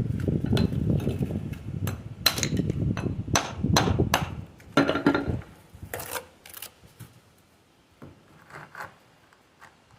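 A hammer knocking on stone: about a dozen sharp, irregular metallic strikes that ring briefly, most of them in the first six or seven seconds and fainter ones later. A low rumble underneath stops about five and a half seconds in.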